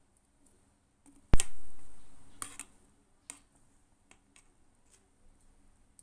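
A utensil knocking against a cooking pot: one sharp knock about a second in that dies away over about a second, then several faint clicks.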